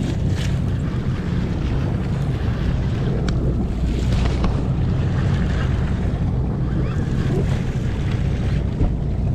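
Sportfishing boat's engine running with a steady low drone, with wind on the microphone and sea water washing around the hull.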